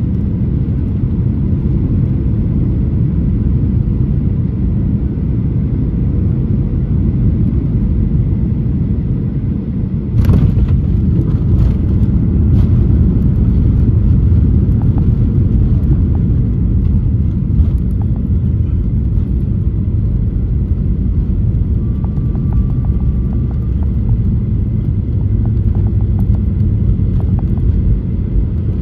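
Cabin noise of a Boeing 737 landing: a steady low rumble on final approach, then a sudden thump of touchdown about ten seconds in. The rumble of the landing roll grows louder after touchdown, then slowly eases as the jet slows with its spoilers raised.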